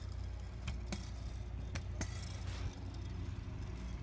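Kick scooter rolling on a concrete driveway: a low steady rumble from the small wheels, with a few sharp clicks and rattles from the scooter.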